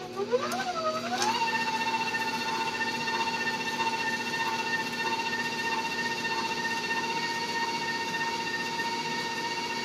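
Electric mixer beating cake batter as the milk is added. Its pitch rises over the first second or so, then it holds a steady whine.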